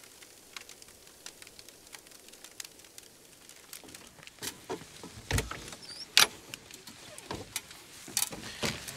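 Light clicks and taps, then from about four seconds in a handful of sharper knocks and clunks, like things being handled and set down.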